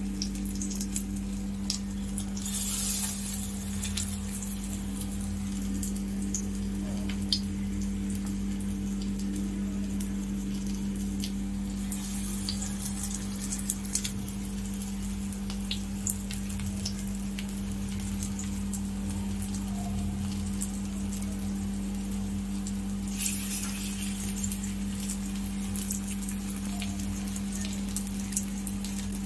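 Batter-coated bread slices shallow-frying in oil in a nonstick pan: a steady sizzle with many small crackles and spits, swelling three times as the frying gets stronger, over a steady low hum.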